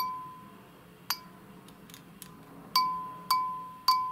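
The metal resonating diaphragm disc of an aircraft air data computer's vibrating-diaphragm pressure sensor, tapped five times, the last three in quicker succession. Each tap rings a clear, bell-like tone that dies away: the disc's own resonance, whose frequency the sensor uses to measure pressure.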